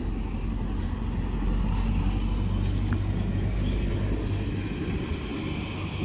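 Ryde Pier tram No. 2 pulling away on its rails: a steady low engine hum with the rumble of its wheels on the track, easing slightly near the end as it moves off.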